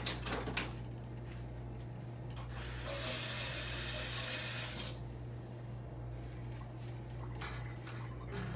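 Kitchen faucet running for about two seconds, starting and stopping abruptly, as a little water is drawn to add to the pot. Light knocks come before and after it.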